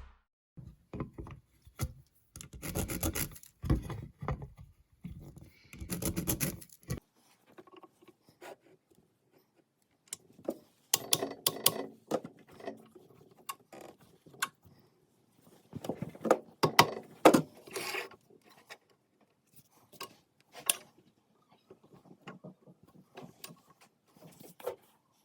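Intermittent hand-handling sounds: short rubs and scrapes with sharp clicks and knocks, broken by quiet gaps, as parts are handled and fitted by hand.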